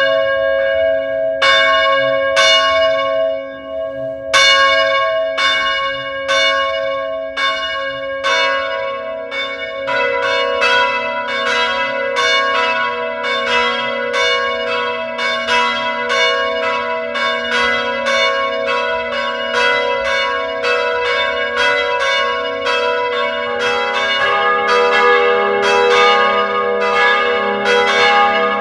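Church bells ringing: several bells of different pitch struck one after another, each note ringing on. The strikes come about once a second at first, then quicker and overlapping from about a third of the way in.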